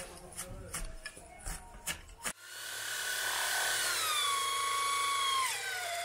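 A run of light knocks and scrapes, then an electric drill with a long bit starts boring into bamboo poles. Its motor whine dips in pitch as the bit loads up near the end, then climbs again.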